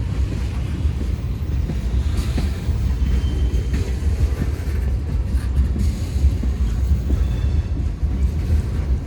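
Freight train cars rolling past at close range: a steady low rumble of steel wheels on the rails, with faint scattered clicks.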